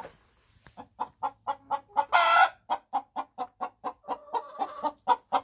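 A hen cackling her egg song: a fast run of short clucks broken by a longer, louder squawk about two seconds in. This cackle is the hen announcing that she has just laid an egg.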